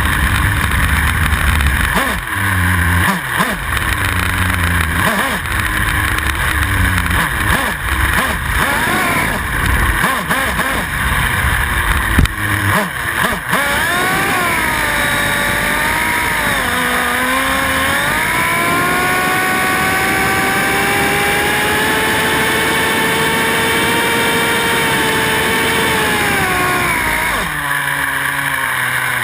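RC car's motor revving in a string of short rising and falling bursts over low rumbling, then holding a long high whine that slowly climbs and drops away near the end.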